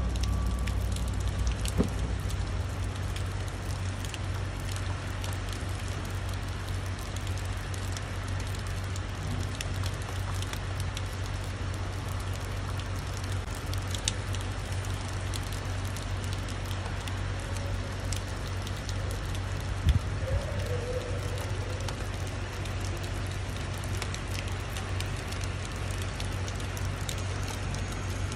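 Steady rain falling, an even hiss with scattered drops ticking close by, over a steady low hum. A few sharper knocks stand out, the loudest about twenty seconds in.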